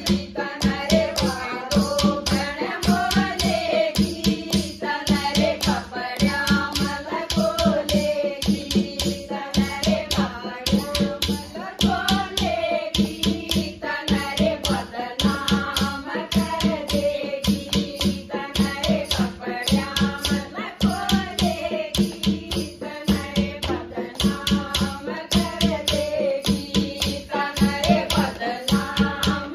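A group of women singing a Hindi devotional bhajan to Shyam (Krishna) together, over a fast, steady beat of dholak drum and hand clapping, with a rattle shaken along.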